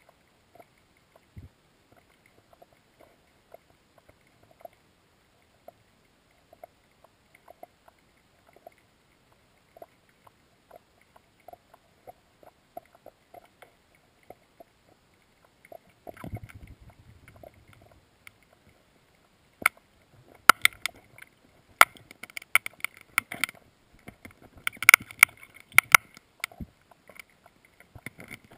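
Underwater recording under lake ice: faint scattered ticks, a low rumble about sixteen seconds in, then from about twenty seconds a run of loud, sharp clicks and knocks.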